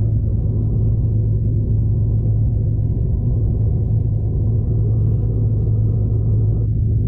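Steady low rumble and hum inside a travelling V/Line passenger train. The higher part of the noise drops away suddenly near the end.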